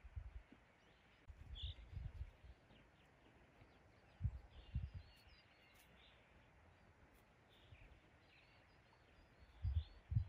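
Faint outdoor ambience of small birds chirping now and then, with a few soft low bumps scattered through it.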